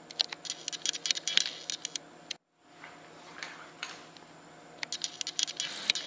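Handling noise: irregular light clicks, taps and rustles as a spray paint can is held and turned close to the microphone. The sound breaks off briefly about halfway through, over a faint steady hum.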